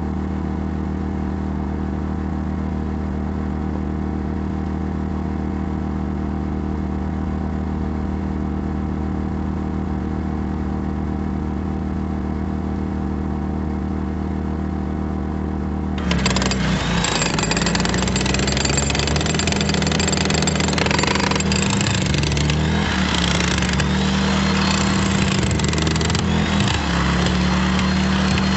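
Portable generator engine running steadily. About 16 s in, a corded power tool starts up with a dense, loud noise, and the generator's hum wavers and dips under the load.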